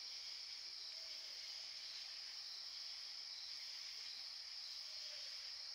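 Faint, steady high-pitched chorus of night insects, an unbroken hiss-like drone.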